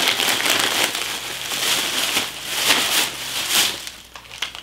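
Thin plastic carrier bag crinkling and rustling loudly as it is handled and rummaged through, dying away near the end.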